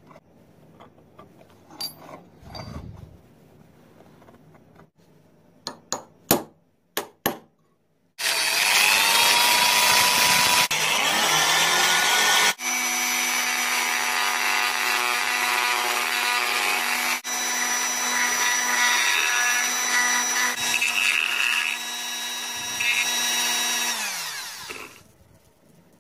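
Handheld rotary tool spinning up about a third of the way in, running with a steady whine as its bit works a brass strip clamped in a vise, then winding down near the end. Before it starts, some light scratching and a few sharp taps.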